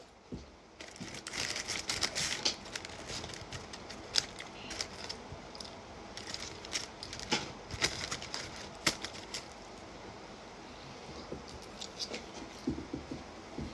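A person eating Wingstop fries close to the microphone: irregular chewing and mouth sounds with crinkling and small clicks from handling the food.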